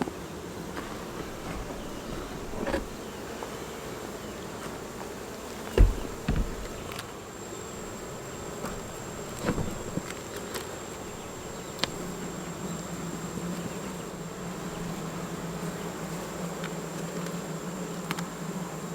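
Honeybees buzzing steadily around an opened hive, the buzz growing stronger about two-thirds of the way through. A few sharp knocks from the hive being worked, the loudest about six seconds in.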